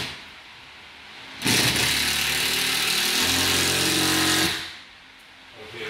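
Cordless impact driver driving a screw into a plywood bulkhead's scarf joint, running for about three seconds. Its note deepens and hardens about halfway through as the screw drives home.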